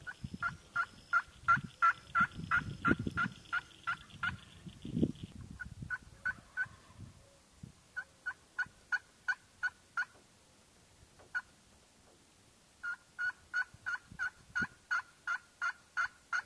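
Wild turkey yelping: runs of short, evenly spaced notes, about five a second, broken by pauses, with one lone note in the middle. A few low thuds sound under the first run.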